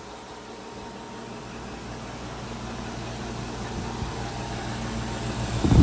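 2011 Ducane heat pump running just after starting up in heat mode: a steady mechanical hum with low tones that grows gradually louder as it comes up to speed. Near the end there is a brief, loud low thump.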